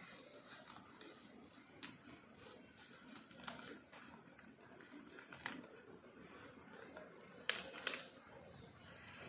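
Cattle grazing: faint rustling with scattered sharp snaps of grass being torn, the two loudest close together near the end.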